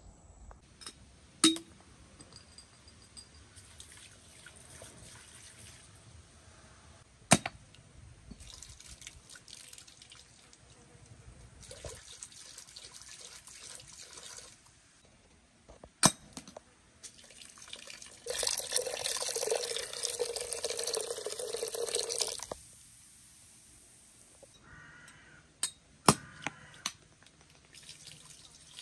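Buttermilk poured from a bottle into a cooking pot, a stream of liquid splashing in several pours, the longest and loudest lasting about four seconds past the middle. A few sharp knocks fall between the pours.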